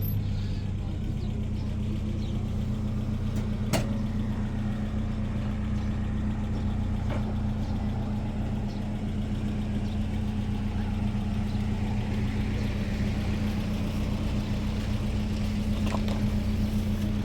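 A motor vehicle's engine running steadily with an even hum. A few faint clicks sound over it.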